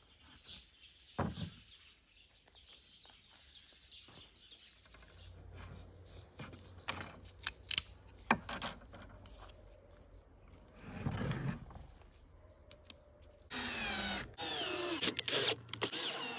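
Scattered taps and knocks of wooden pieces being handled, then near the end a cordless drill running in a few short bursts, its motor pitch rising and falling as it drives screws into the wooden roof trim of a birdhouse.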